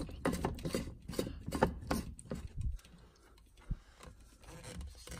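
Plastic whole-house water filter housing being screwed by hand onto its head: a run of rubbing, clicking strokes from the plastic threads, several a second, then quieter with a single knock about two-thirds of the way in.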